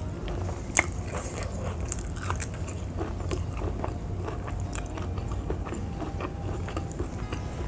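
Close-up chewing and crunching of raw vegetables, with irregular crisp bites and wet mouth clicks, one sharper crack a little under a second in.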